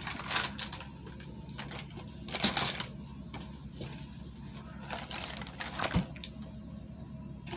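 Rummaging among makeup brushes and containers: short clusters of clicks and rattles a few seconds apart, with a sharp knock about six seconds in, over a faint low hum.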